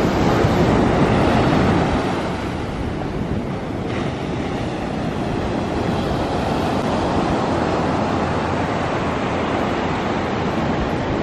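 Ocean surf breaking and washing up a sandy beach, a steady rushing noise that is a little louder for the first two seconds, with wind on the microphone.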